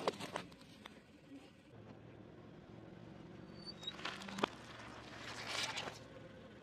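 Car tyre crushing objects: a sharp crack as plastic disposable lighters burst under the wheel. About four seconds in comes crackling and crunching with a sharp snap as a pineapple is squashed, then a rustling, crunching burst near the end, all over a low steady hum.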